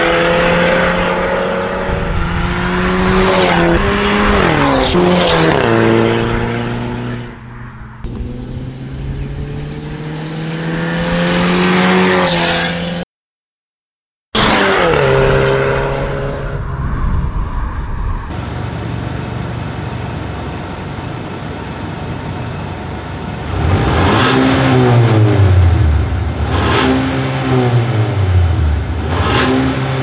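A Mercedes-Benz A250 (W177) turbocharged four-cylinder through an Armytrix decat valvetronic exhaust, accelerating hard past the listener. Its note climbs and drops back with each upshift, then rises again, cuts off, and falls away as the car drives off. Near the end the engine runs steadily, then is revved three times, each rev sweeping up and back down.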